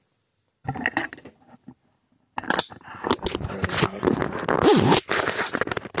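A short clatter about a second in, then from about two and a half seconds on, continuous scraping and crackling handling noise from the recording phone being picked up. Fingers and clothing rub right against its microphone.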